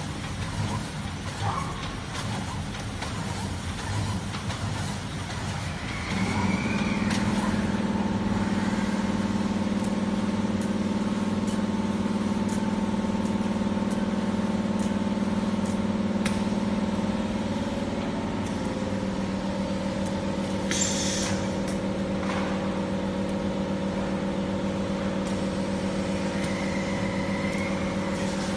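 Turntable pallet stretch wrapper running: a steady electric motor hum sets in about six seconds in and shifts slightly in pitch later on. A short, sharp hiss comes about two-thirds of the way through.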